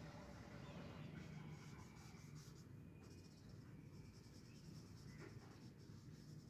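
Faint scratching of a felt-tip marker rubbing on paper in short colouring-in strokes, over a faint low hum.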